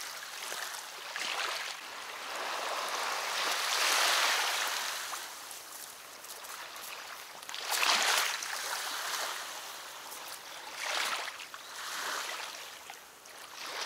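River water lapping and washing against the reedy bank, a noisy hiss that swells and fades every few seconds, loudest about four and eight seconds in.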